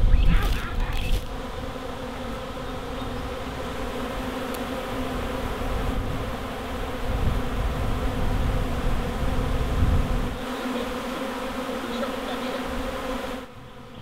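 A freshly landed swarm of honey bees buzzing, a dense steady hum of many wings; the bees are agitated and stinging. The hum turns quieter near the end.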